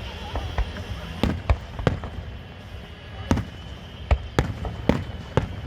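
Aerial fireworks bursting: about eight sharp bangs at irregular intervals, over a low continuous rumble.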